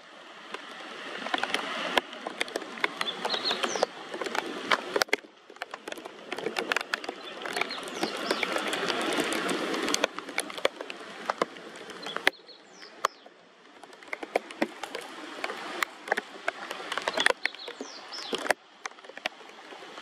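Rainy riverside ambience: a steady hiss of rain and flowing water, broken by many sharp ticks, with a few short high bird calls. The background changes abruptly several times.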